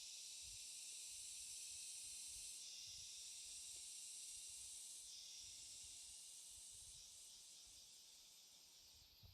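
Faint, steady high-pitched insect chorus, its layered shrill bands shifting every few seconds and fading toward the end.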